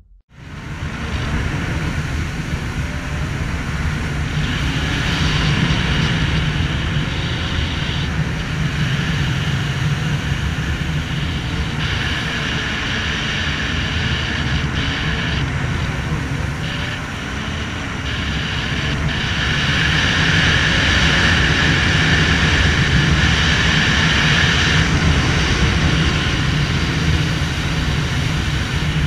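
Jet ski engine running at speed, a steady drone mixed with the rush of water and wind. It eases off slightly just past the halfway point, then picks up again.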